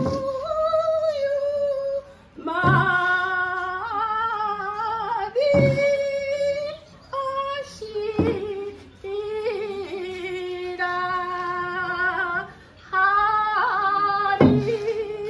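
Women singing an Okinawan usudeeku song in long, wavering held notes, with a stroke on small hand-held frame drums every few seconds.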